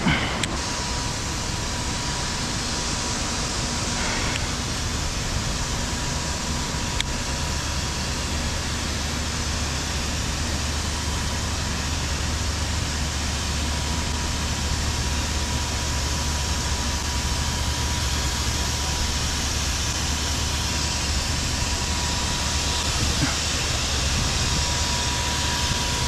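A steady low mechanical rumble with a constant high-pitched hum over a hiss, unchanging throughout.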